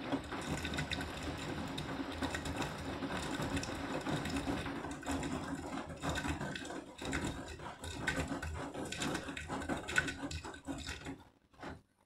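Beko front-loading washing machine tumbling its drum in a sudsy rinse: a steady motor hum with water and suds sloshing and many small knocks of wet clothes turning over. It falls quiet near the end as the drum pauses.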